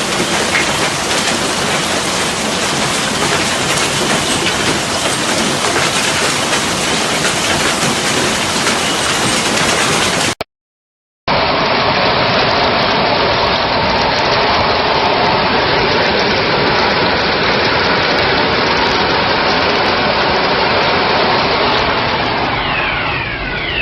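Hail and heavy rain pounding down in a loud, dense, steady rush, in two stretches split by a brief silent cut about ten seconds in.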